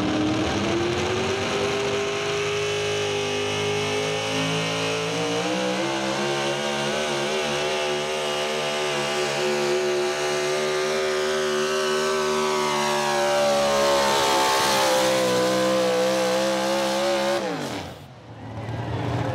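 Pro Stock 4x4 pulling truck's engine held at high revs under load while pulling a weight-transfer sled. Its pitch climbs in the first two seconds and again about five seconds in, then drops sharply near the end as the pull finishes and the throttle comes off.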